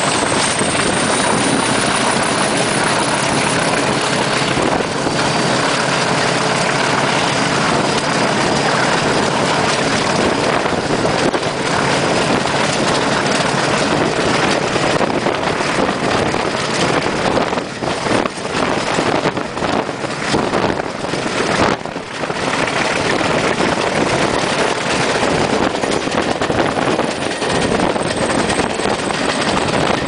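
English Electric Class 40 diesel locomotive D306 working hard on an incline, heard from an open window of a coach behind it: a loud, steady engine drone with a high turbocharger whistle that rises over the first couple of seconds and falls away near the end.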